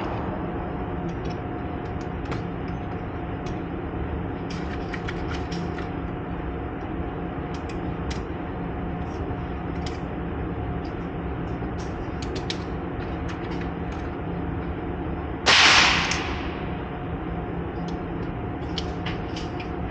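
A single gunshot about fifteen seconds in, with a short echoing tail, over a steady mechanical hum and faint scattered clicks.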